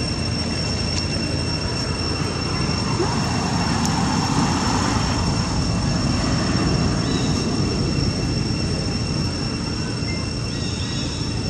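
Steady outdoor ambience: a continuous high-pitched whine over a low rumble and hiss, swelling briefly a few seconds in.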